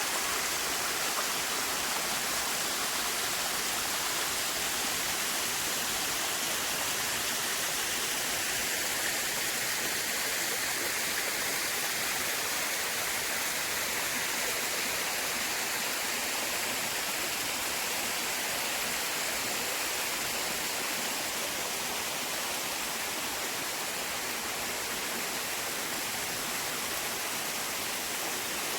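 Steady rushing of running water in a forest stream, an even, unbroken hiss-like flow.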